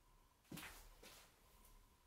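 Faint handling noise as the restored meat cleaver is turned and swung in a gloved hand: two brief swishes about half a second apart, the first louder, in otherwise near silence.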